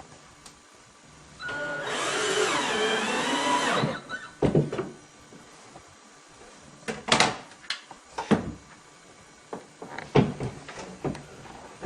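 Power drill running for about two seconds, its pitch wavering up and down, followed by several short, sharp knocks.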